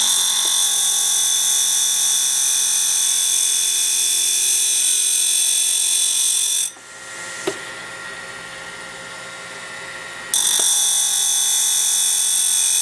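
Compressed air hissing steadily from the air-bearing spindle of an end-mill sharpening fixture. The hiss cuts off about seven seconds in, there is a single click, and it starts again about ten seconds in. A faint steady motor hum from the grinder runs underneath.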